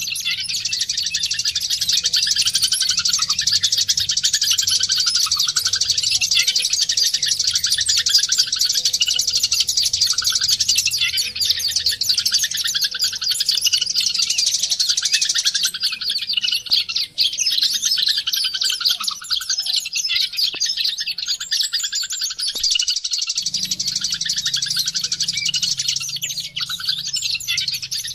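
White-eye (pleci, Zosterops) song: a fast, continuous high twittering chatter with a few brief breaks, used as lure song to get a pleci singing.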